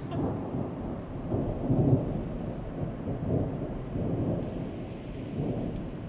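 A low rolling rumble that swells and fades several times, like distant thunder.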